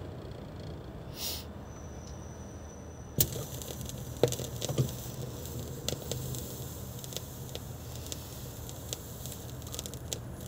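Dual 435 automatic turntable's stylus setting down into the lead-in groove of a vinyl LP: a low hum, then a sharp click about three seconds in as the needle lands, followed by steady record surface hiss and crackle with scattered pops.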